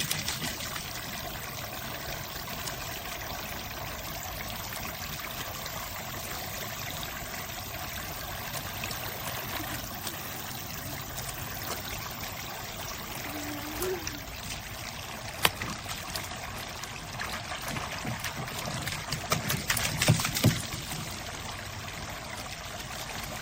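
Water trickling and pouring steadily in a plastic kids' water table, with a sharp splash or knock a little past the middle and a few louder splashes near the end.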